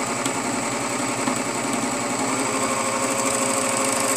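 Serger (overlock sewing machine) running steadily at speed, its needles and knife stitching and trimming flannel fabric as it is fed through.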